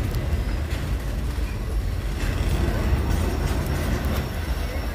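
Double-stack intermodal freight train rolling past, its well cars making a steady low rumble with a few sharp clicks.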